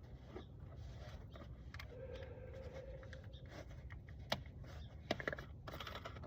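Faint clicks and scrapes of a bottle of motor oil being handled and its cap opened, with a cluster of small knocks in the second half. A faint steady hum sounds for about a second and a half in the middle.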